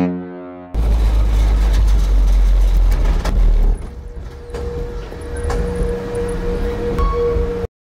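A ship's horn dying away, then a car driving into a ferry's vehicle deck. A loud low rumble with scattered knocks eases off about four seconds in to a quieter rumble with a steady tone, and everything cuts off just before the end.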